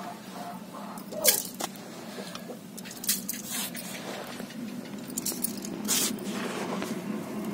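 A hand scooping coarsely pounded sesame seeds out of a stone mortar into a steel bowl: gritty scraping and rustling, with a few sharp clicks along the way.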